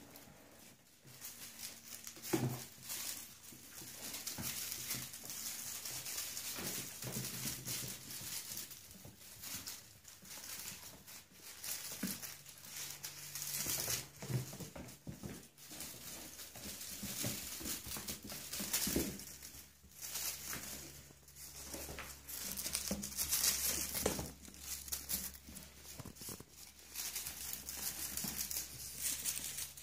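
Crinkly cat toys, a tinsel crinkle ball and a feather wand, rustling and crackling in irregular bursts as Bengal kittens bat and pounce on them, with light scuffling of paws on a hard floor.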